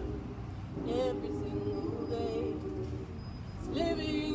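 Large mixed choir of men's and women's voices singing in harmony and holding long notes. One phrase is sung, then there is a short break for breath about three and a half seconds in before the next phrase begins.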